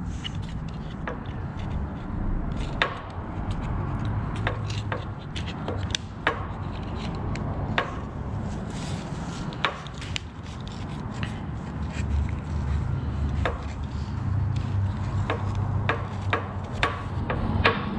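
Irregular light clicks, taps and rubbing as the opened impact driver's plastic housing and internal parts are handled and wiped with a cloth on a metal workbench, over a low steady hum.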